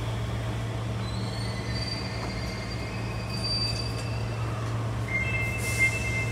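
Hankyu commuter train running in the Sakaisuji Line subway tunnel, heard from inside the car: a steady low running hum with high-pitched wheel squeal on a curve. The squeal sits high for a few seconds, then drops to a lower pair of tones about five seconds in, with a short knock just before the end.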